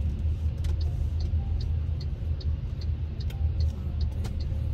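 Steady low rumble of a car heard from inside the cabin, with a light, regular ticking at about two to three ticks a second.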